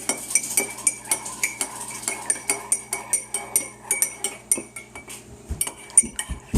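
Metal spoon stirring honey into a cup of green tea, clinking quickly and evenly against the sides of the cup, about three clinks a second.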